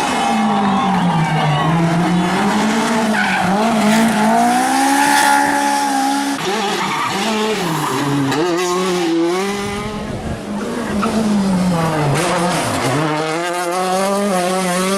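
Rally car engine heard from on board at full attack, its note rising as it revs out and dropping repeatedly through gear changes and lifts. Tyres skid and squeal through the corners.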